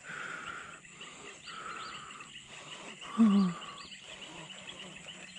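Animal calls: a mid-pitched call repeating about every second and a half over a steady row of high chirps, with one short, low, falling call about three seconds in.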